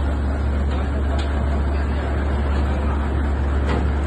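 Heavy diesel engine running steadily with a deep, low drone, with a few faint clicks over it.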